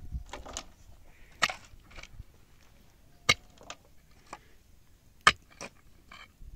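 A shovel and a pick digging stony dry soil, with earth thrown into a metal wheelbarrow. Irregular scrapes and sharp strikes, the two loudest about three and five seconds in.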